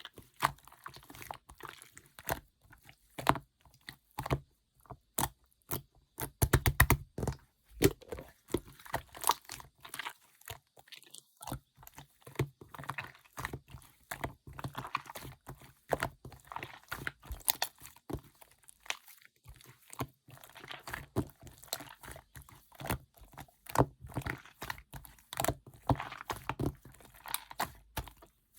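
Hands squishing, pressing and stretching a mixed slime, giving irregular sticky clicks, crackles and small air-bubble pops, with a quick flurry of louder pops about six to seven seconds in.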